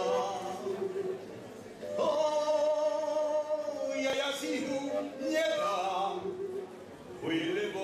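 A man singing a Slovak folk song unaccompanied, with long held notes that bend and waver; he pauses briefly about a second in and again near the end.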